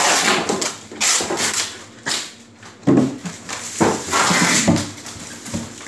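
Stacks of plastic-wrapped food containers being handled and set down, making a series of short crinkling, rustling bursts of plastic about once a second.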